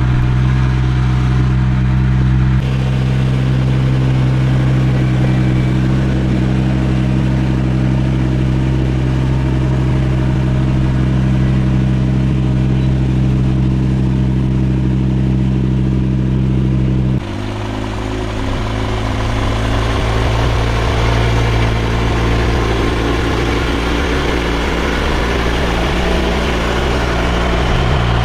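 Restored truck's engine running steadily. About two-thirds of the way through the tone changes abruptly to a rougher, wavering sound.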